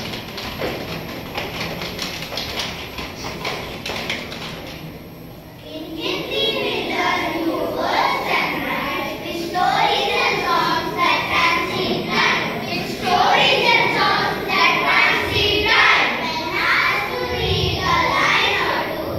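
Children's voices reciting a poem aloud, coming in about six seconds in after a quieter stretch of murmur.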